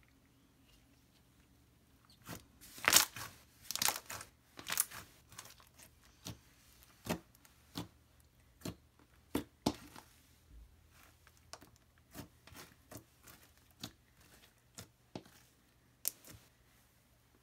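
Jelly slime being squeezed and stretched by hand, giving irregular sharp clicks and sticky pops that start about two seconds in, come thickest early on, then grow sparser.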